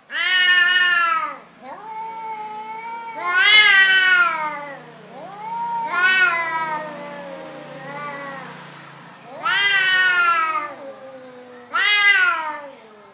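Two domestic cats yowling at each other in a face-to-face standoff, the drawn-out threat caterwauls of a cat fight about to break out. There are five long, loud wails, each rising then falling in pitch, about every two to three seconds, with quieter, lower moaning calls between them.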